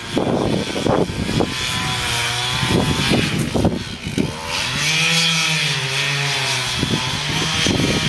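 Two-stroke chainsaw running at high revs, cutting into the base of a large tree trunk for a felling cut. The engine pitch wavers up and down as the chain bites into the wood.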